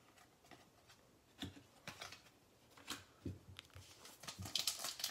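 Faint handling of trading cards: a few soft taps and clicks as the cards are shuffled and set down, then the crinkle of a foil card pack being picked up near the end.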